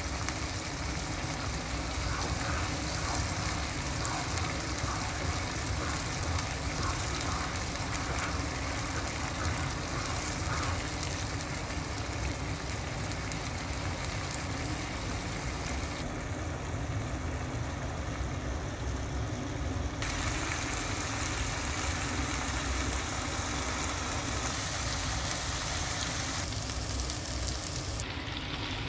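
Blended shallot, garlic and ginger paste sizzling and bubbling in a little oil in a nonstick wok, over a steady low rumble. The hiss of the frying changes brightness abruptly a few times.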